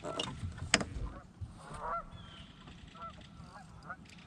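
Geese honking repeatedly in short calls, with two sharp knocks in the first second.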